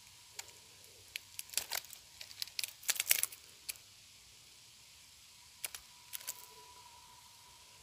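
Small sharp metallic clicks and rattles of fishing tackle being handled: the homemade lure, its hooks and the snap at the end of the line knocking together. They come in a busy cluster from just after the start to about four seconds in, loudest around three seconds, then a shorter cluster near six seconds.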